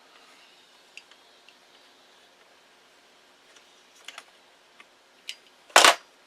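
Multitool knife blade cutting around the dielectric insulation of RG6 coax: scattered faint clicks, then one short, loud scraping cut near the end.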